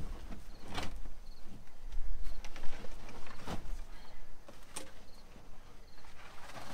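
Scattered knocks, clacks and rustling as old carpet and debris are pulled by hand from a car's bare, rusty floor pan.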